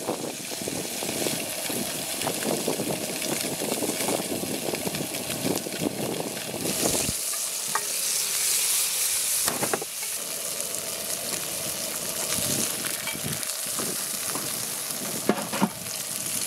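Fish pieces frying in oil in a cast iron skillet over a propane camp burner, sizzling and crackling, with a brighter hiss for a few seconds in the middle. A few sharp clicks of tongs against the pan.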